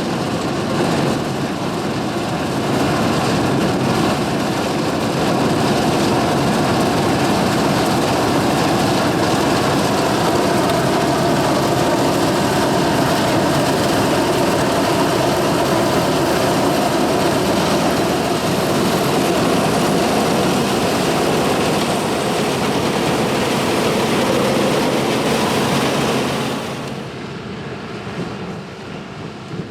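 A 1982 John Deere 4420 combine's 359 cubic inch six-cylinder diesel and harvesting machinery running steadily while cutting soybeans. The sound drops off sharply about 27 seconds in as the combine moves away.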